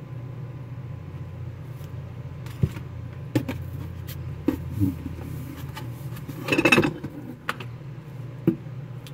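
Dishes being handled and set down: scattered knocks and clinks of china and glass, with a louder clatter about six and a half seconds in, over a steady low hum.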